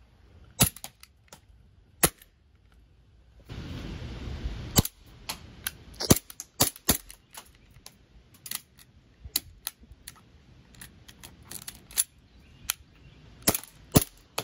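Green-gas blowback airsoft pistol, a Glock 18C, firing about twenty irregularly spaced single shots rather than full-auto bursts: the gun is failing to run on full auto. A hiss lasting a little over a second comes about three and a half seconds in.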